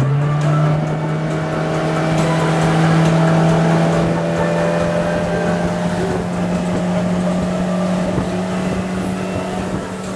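Motorboat engine running under throttle, its pitch climbing slowly and steadily as the boat gathers speed, over the rush of wind and water.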